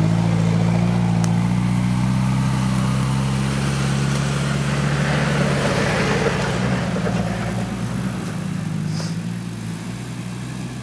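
Off-road 4x4's engine idling steadily close by, growing quieter over the last few seconds.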